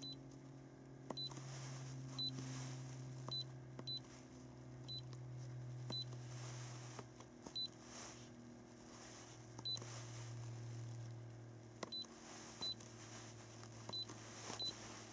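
Handheld iCarsoft i930 diagnostic scanner beeping at button presses while its menus are scrolled: about a dozen short, high beeps at irregular intervals, over a low steady hum.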